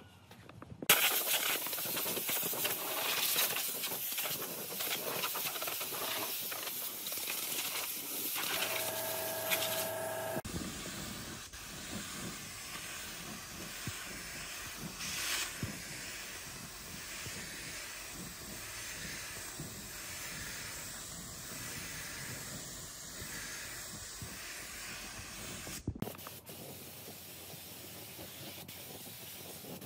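Compressed-air spray gun spraying finish onto wood: a steady hiss that starts about a second in and changes abruptly twice, near 10 s and near 26 s. A brief humming tone sounds under the hiss just before the first change.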